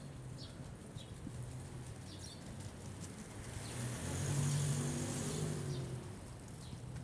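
A motor vehicle passing close by, its engine and tyre noise swelling and fading over about two seconds past the middle, over a low steady hum, with a few short bird chirps.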